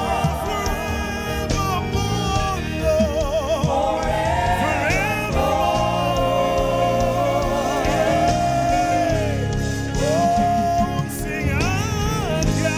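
Live gospel worship song: a lead singer and backing vocalists sing long held notes with vibrato over keyboard accompaniment.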